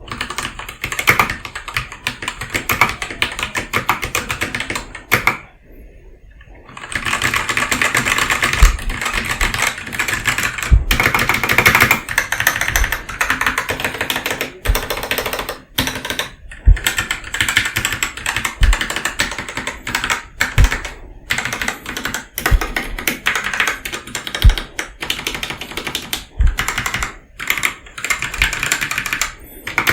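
Noir N1 v3 mechanical keyboard with Gateron Yellow linear switches and a foam dampener being typed on: a fast, dense stream of keystroke clicks with a short pause about five seconds in, and now and then a heavier low thud.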